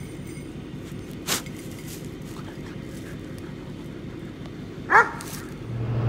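Dog giving a single short yelp that falls steeply in pitch, about five seconds in, with a sharp click a little over a second in.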